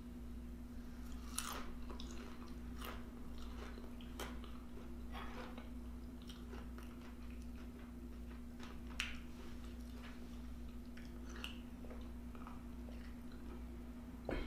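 Close-miked chewing and biting of a person eating, with scattered small crisp clicks and crunches, over a steady low electrical hum.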